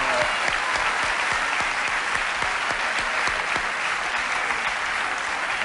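Studio audience applauding: steady, even clapping.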